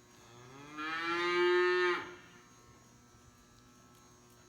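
A cow mooing once: a single long call of about a second, rising at the start, then held steady before cutting off.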